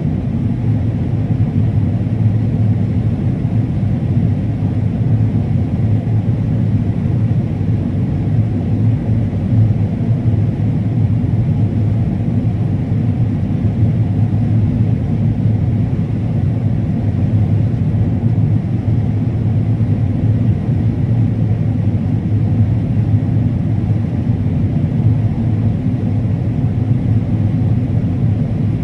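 Combine harvester running steadily while cutting corn: a loud, constant low engine hum and machinery rumble.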